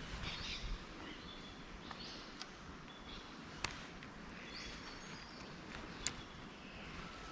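Birds calling with repeated short, high chirps and whistles over faint outdoor background noise, and two sharp clicks partway through.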